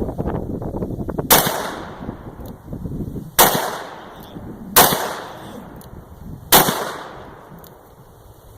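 Four gunshots fired one after another at uneven spacing, one to two seconds apart, each followed by a short fading echo.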